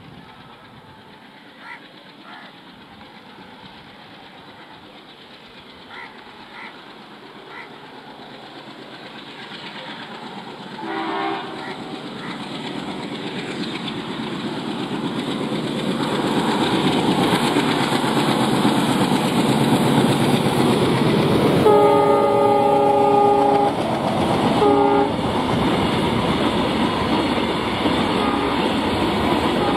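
ALCO WDM-3A diesel locomotive with its 16-cylinder engine, hauling a loaded oil tank train, approaching and growing steadily louder. Its horn sounds briefly about 11 s in, then a longer blast about 22 s in followed by a short one. The tank wagons then roll past with wheel clatter.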